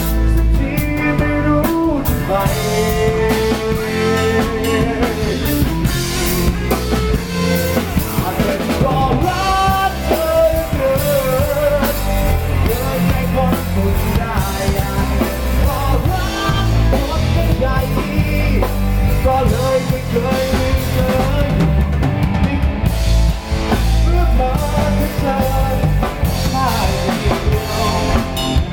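Rock-style pop song with a drum kit keeping a steady beat and guitar, with melody lines running over it and no words sung.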